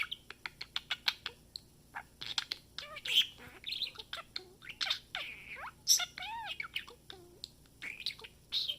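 Pet budgerigar chattering: a rapid string of clicks, short chirps and scratchy squawks, with a few arched warbled notes about six seconds in.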